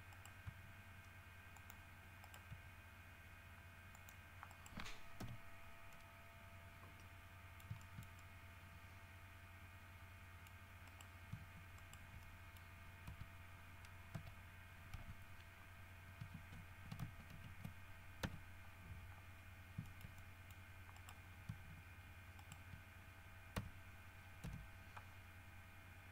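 Faint, scattered clicks of a computer mouse and keyboard, at uneven spacing, over a steady low hum and faint whine.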